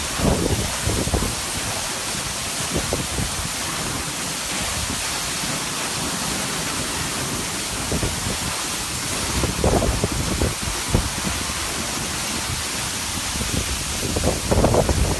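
Steady hiss of a heavy downpour and rushing water. A few low rumbles of wind buffet the microphone near the start, about ten seconds in, and near the end.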